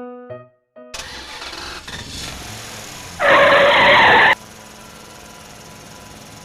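A short run of piano music ends, then a vehicle engine starts and runs, with a loud burst lasting a bit over a second about three seconds in.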